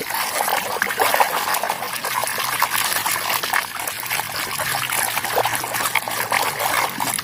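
Wet splashing and trickling with irregular crackles and drips as a toy is washed in water.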